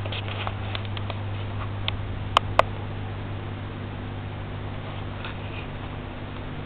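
Handling noise from a handheld camera: a steady low hum with a few light ticks, then two sharp clicks a quarter second apart a little before the middle.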